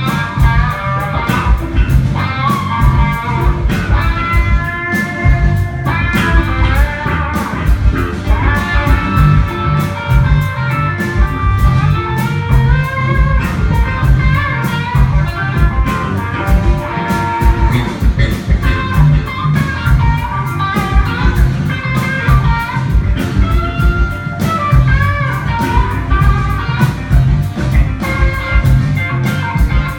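Live blues-rock band playing an instrumental passage: a lead melody line over a driving bass line and a steady drum beat.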